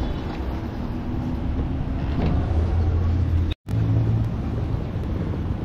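Street traffic noise with a motor vehicle engine running nearby, a steady low rumble. The sound drops out for a moment about three and a half seconds in.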